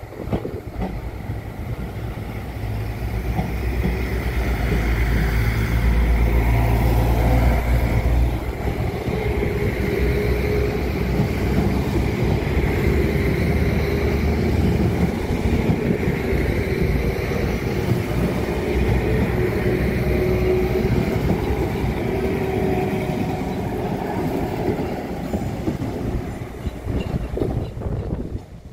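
Diesel multiple unit train moving off and passing close by. Its engines run under power with a low rumble, loudest in the first third, then a steady drone with wheel and rail noise as the carriages go past. The sound drops off suddenly at the very end.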